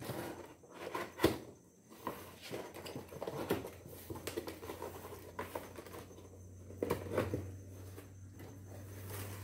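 Cardboard rifle box being opened and handled on a wooden bench: its lid is slid and lifted off with scraping and rustling. A sharp knock about a second in is the loudest sound, and a few more knocks come near the end.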